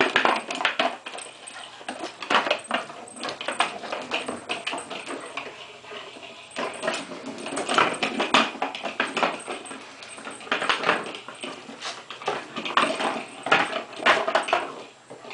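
English Setter puppy playing with a toy on a hardwood floor: irregular clatter of claws and the toy knocking across the boards, in clusters with short pauses between.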